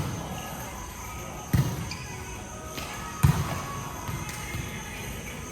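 Basketball bouncing on a court floor: three sharp low thuds, at the start, about a second and a half in and just past three seconds in, over a steady background of hall noise.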